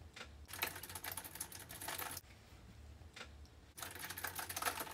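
Rapid typing on a computer keyboard: two runs of quick key clicks with a pause of about a second and a half between them.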